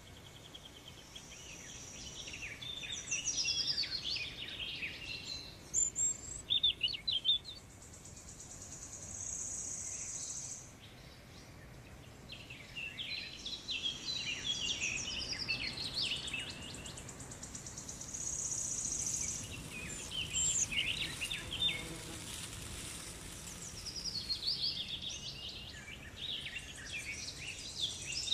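Outdoor garden ambience: birds chirping in several short clusters over a steady, high insect drone that stops and starts.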